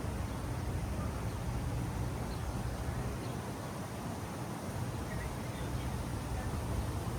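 Steady outdoor ambience: a continuous low rumble with soft hiss, with a few faint, brief high chirps scattered through it.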